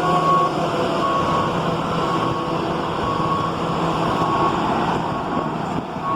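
Steady engine-like noise with a short, high beep repeating about once a second.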